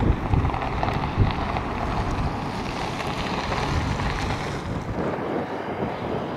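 Wind buffeting the microphone: a steady rushing noise with irregular low rumbles that thins out about five seconds in.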